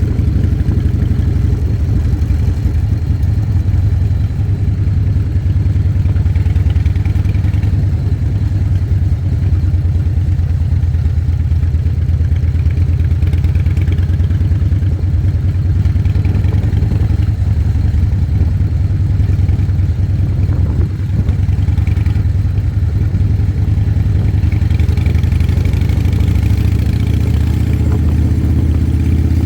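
Harley-Davidson V-twin motorcycle engine running steadily under way, a dense low pulsing throb.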